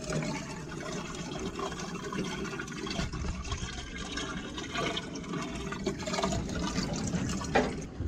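Seawater running and sloshing in a boat's live bait tank, with a brief knock near the end.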